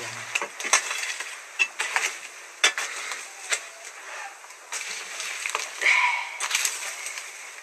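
Long iron rod poked and scraped around inside a clay pit oven, giving irregular knocks and clicks. A brief squeal comes about six seconds in.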